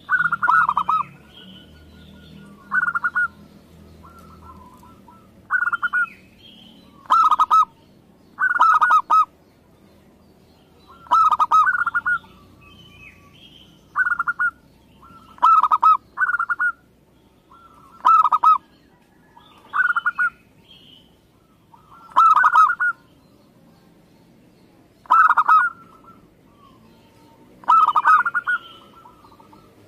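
Local Indonesian zebra dove (perkutut) cooing, a phrase of rapid, stuttering coo notes repeated every couple of seconds, about a dozen phrases in all. Fainter, higher chirps come between the phrases.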